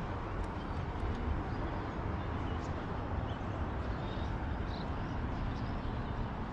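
Steady low rumble of outdoor background noise, with a few faint ticks.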